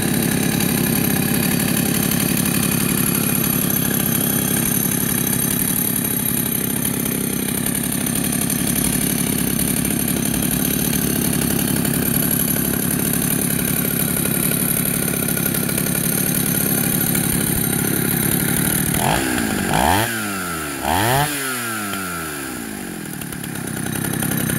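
Husqvarna two-stroke chainsaw idling steadily, a smooth "purr". Near the end it is revved twice in quick succession, each time rising and falling in pitch, then drops back to a lower idle.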